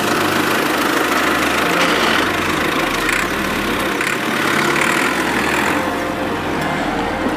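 A vehicle's engine running steadily, with no clear rise or fall in speed.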